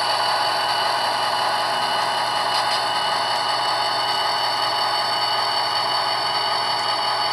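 HO scale Athearn SD40-2 model diesel locomotive running along the track: its sound decoder plays a steady diesel engine sound through the small onboard speaker, over a thin motor-and-gear whine.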